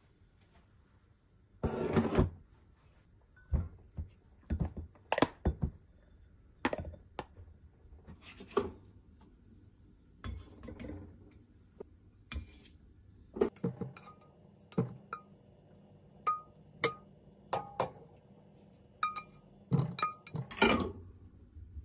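Kitchen cookware sounds: a spatula knocking and scraping in a frying pan and food being set down on ceramic plates, a string of separate knocks and clinks. In the second half several clinks ring briefly, metal or ceramic struck lightly.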